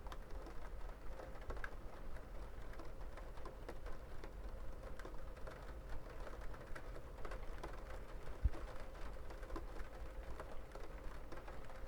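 Rain falling, heard as a scatter of irregular drop ticks over a low steady rumble, with one dull thump about eight and a half seconds in.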